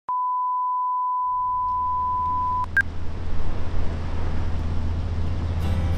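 Film-leader countdown sound effect: a steady high-pitched test tone for about two and a half seconds that cuts off, then a single short higher beep. A low steady hum with rough noise over it comes in about a second in and carries on, and plucked-guitar music starts near the end.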